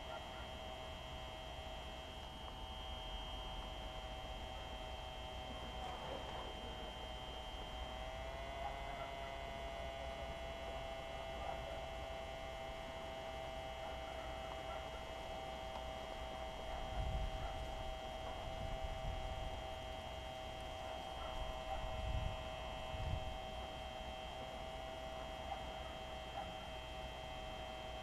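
A steady hum made of several pitched tones that step slightly in pitch together about eight seconds in. Low rumbles come up twice in the second half.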